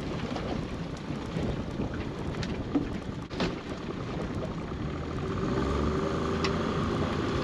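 Boat engine running with wind buffeting the microphone and a couple of brief knocks; about five seconds in it rises to steadier, higher revs. The engine is held at high revs to feed more power to the pot-hauling winch, which has an electrical problem.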